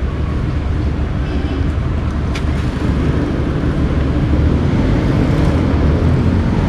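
A motor vehicle engine running steadily close by, a continuous low rumble over street traffic.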